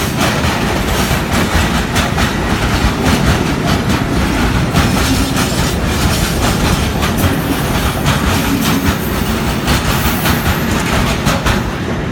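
Freight train of Eas open wagons loaded with timber rolling past, steel wheels clattering steadily over the rail joints.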